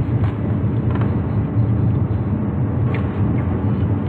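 Steady low rumble of an idling car engine heard inside the cabin, with a few faint clicks.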